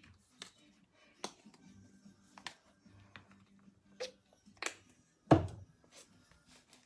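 Scattered sharp clicks and knocks from painting supplies being handled, about nine in all, the loudest a heavier thump a little past five seconds in, over faint background music.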